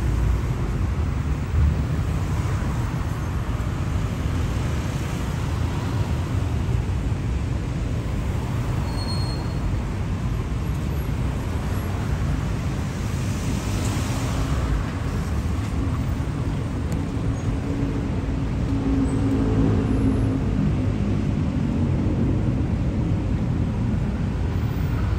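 Busy city road traffic: car and bus engines running and tyres on the road in a steady rumble. About halfway through, a hiss swells and fades as a vehicle goes by, and a heavier engine hum with a steady tone comes up in the last few seconds.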